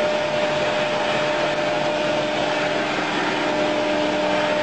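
Ordinary 220-volt DC motor running steadily on a test bench: a continuous whir with a steady whine held at one pitch.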